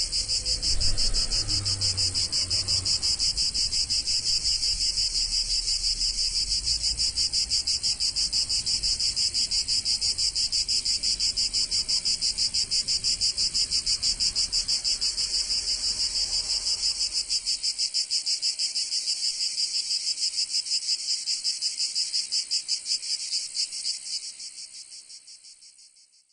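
A continuous high-pitched chirring sound that pulses rapidly, over a low rumble that stops about two-thirds of the way through. The chirring fades out near the end.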